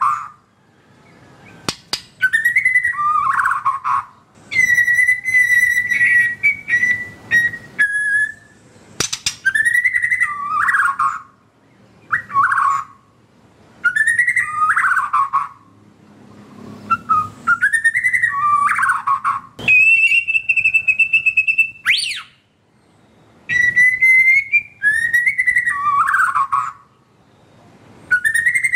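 White-rumped shama (murai batu) singing loud whistled song phrases about every two seconds, mostly a repeated motif that rises and then drops. A few longer held whistle notes come in, one near the start and one past the middle.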